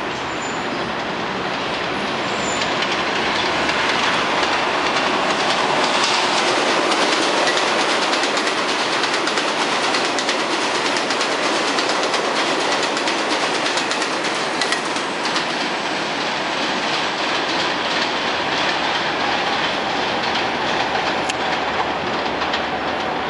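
R42 subway train running through an elevated station at speed without stopping, its wheels clattering over the rail joints. The noise builds over the first few seconds and is loudest for several seconds as the cars pass.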